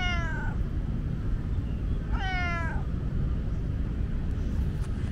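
Tomcat meowing twice, loud, each meow sliding down in pitch: the first is already sounding at the start and the second comes about two seconds in. A steady low rumble runs underneath.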